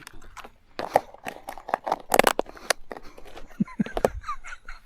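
Irregular rustling, crinkling and sharp clicks, handling noise close to the microphone.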